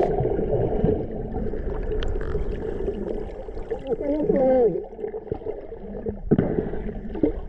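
Underwater sound picked up by a diver's GoPro: a muffled low rush of water with gurgling, wavering gliding tones near the middle and end, and one sharp knock a little after six seconds in.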